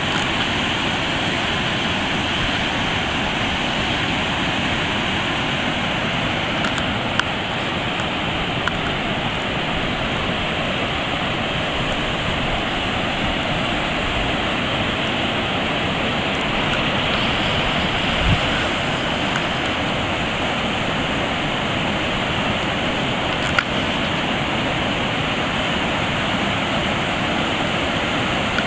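Floodwater rushing over a dam spillway's rock ledges after heavy rain: steady, loud white-water noise, with a few faint brief knocks along the way.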